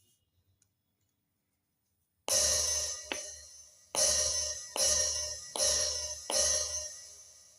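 Roland SPD-20X electronic percussion pad sounding cymbal samples as its pads are struck: five hits a little over two seconds in, each a bright crash-like wash with a low thump that dies away. The unit is producing sound again, as on a test after its no-sound repair.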